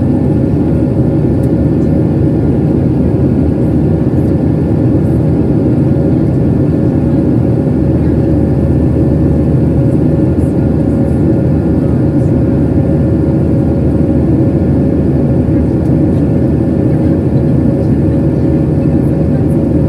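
Cabin noise inside a Boeing 737-700 in flight, heard at a window seat by the wing: the steady, loud drone of its CFM56-7B jet engines and airflow, with a steady hum tone over it.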